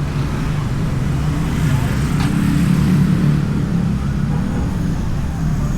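Honda Beat scooter's engine running under way, heard from a camera mounted on the scooter along with road and wind noise; the engine swells a little about two to three seconds in.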